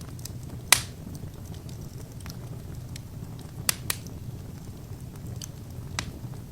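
Wood fire burning in a fireplace: a steady low rumble with sharp pops from the burning logs, a loud one about a second in, two close together a little past halfway, and one near the end.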